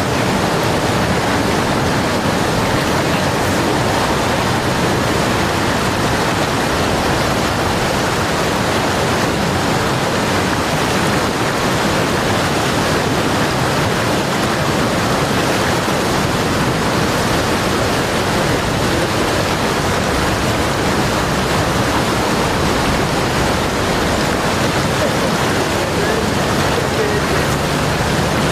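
Fast-flowing river water rushing steadily, an even unbroken noise.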